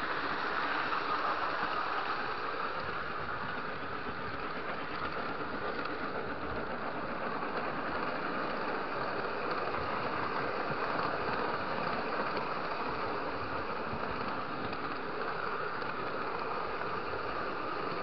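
Steady running noise of a Lionel model train rolling along its track, picked up by a camera riding on the train.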